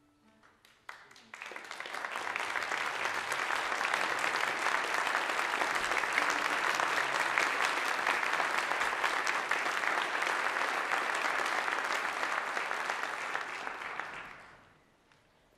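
Audience applauding: the clapping swells in over the first two seconds, holds steady, then dies away about a second before the end.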